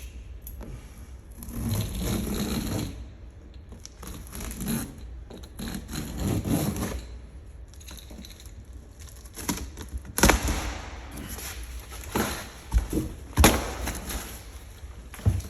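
Boat parts being handled: scraping and rubbing in a few spells, then several sharp knocks, a few louder than the rest, as hard pieces are set down or bumped.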